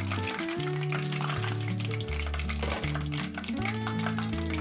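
Breaded chicken cutlet deep-frying in hot oil: a steady sizzle full of small crackles, over background music with held notes.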